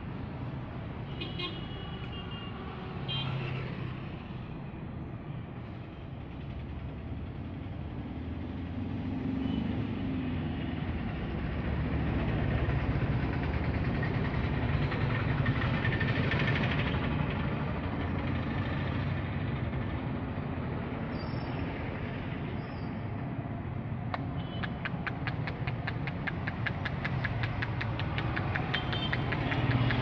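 Steady rumble of road traffic passing close by, swelling for several seconds in the middle. Near the end a fast, regular clatter comes in.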